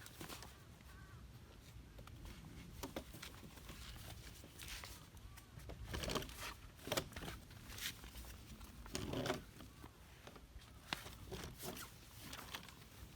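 Scattered rustling, scraping and clicking of things being handled, strongest in a cluster a little past the middle.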